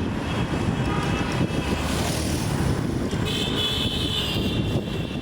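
City road traffic heard from a moving vehicle: a steady rumble of engines and tyres. A vehicle horn sounds for about two seconds near the end.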